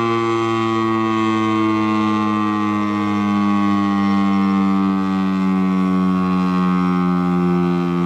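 Electromechanical outdoor warning siren winding down: one steady tone rich in overtones, slowly falling in pitch.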